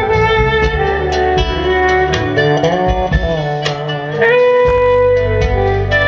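Turkish instrumental music: a clarinet plays a melody of long notes that bend in pitch, over plucked kanun strings.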